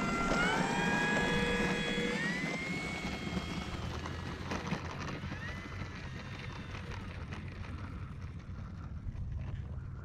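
Electric motor and propeller of an E-flite Air Tractor 1.5m RC plane whining up to power about half a second in as the plane accelerates away down the runway. The whine then shifts in pitch and fades with distance over a steady low wind rumble.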